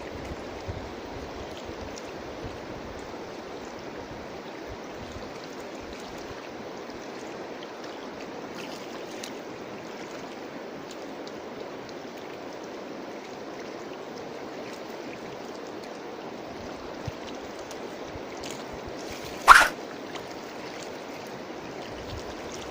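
Steady rush of flowing river water, with one brief loud sharp sound near the end.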